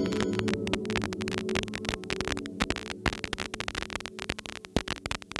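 The final low chord of a doom/stoner metal track fading away under dense crackling static, the crackle thinning out toward the end.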